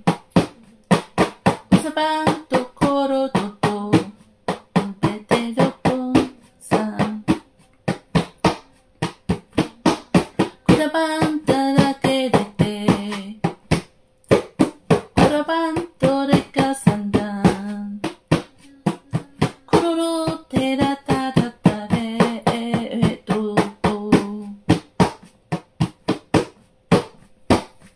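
Glossolalia: a voice praying in tongues in quick, clipped syllables, half sung, in phrases broken by short pauses, over a soft sustained musical backing.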